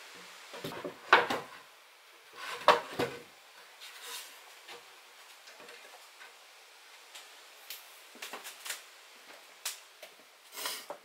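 Pine boards being set onto a wooden shelf frame, knocking and scraping on the rails: two loud wooden clunks in the first three seconds, then lighter taps and rubs.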